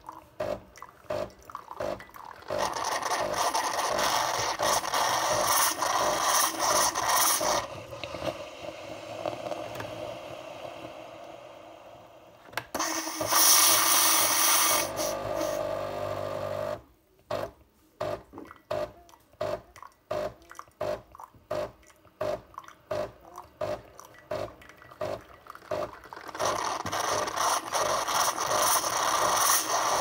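Nespresso Lattissima Pro coffee machine running a water cycle into a glass jug: its pump pulses in quick, rhythmic clicks, several a second, broken by stretches of steady rushing flow that start and stop abruptly.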